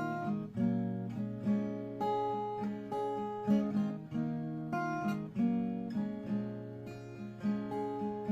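Acoustic guitar strummed in a steady chord pattern, each strum ringing out and fading before the next.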